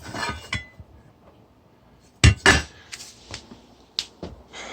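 Metallic clinks and knocks from metal parts being handled: a short scrape at the start, two loud knocks a little over two seconds in, then a few lighter taps and a sharp click near the end.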